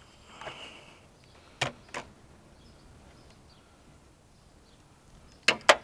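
Hand tools being handled: a short scrape in the first second, two sharp clicks, a quiet stretch, then two loud sharp clicks near the end, as of a socket being fitted to a ratchet.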